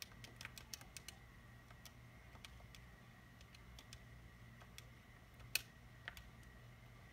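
Faint clicks of calculator keys being pressed: a quick run of presses in the first second, then scattered single presses, with one louder click about five and a half seconds in.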